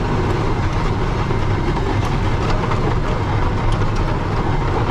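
Massey Ferguson tractor running steadily under load, heard from inside the cab as its rear blade pushes snow.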